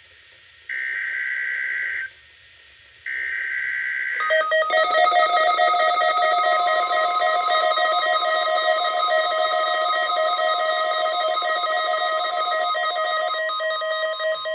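NOAA Weather Radio SAME header data bursts: two short buzzy bursts about a second long, a second apart. About four seconds in, a loud fluttering alarm tone follows and holds. A steady pure tone joins a couple of seconds later: the weather radio's tone alert test.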